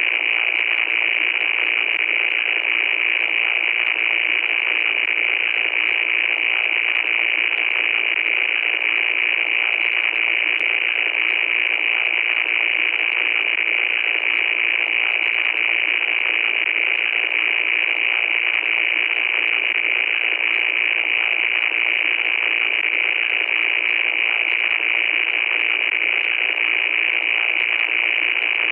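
Loud, steady static noise: a harsh, thin hiss with no low end, strongest in its upper part, with faint crackles running through it.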